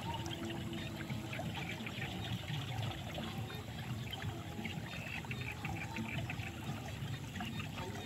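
Muddy water pouring and splashing steadily into a pool, with a constant gushing and bubbling.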